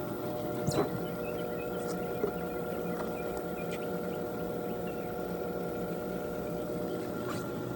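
Intex above-ground pool filter pump running with a steady hum, drawing water through the skimmer basket; a light click sounds about a second in.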